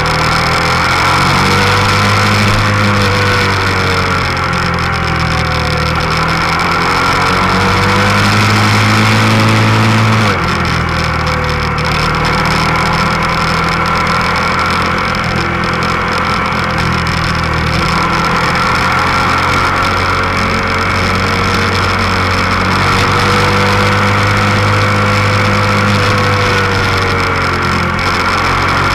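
Motorcycle engine running under way, heard from a camera mounted on the bike. The engine note rises and falls gently with the throttle and drops abruptly about ten seconds in.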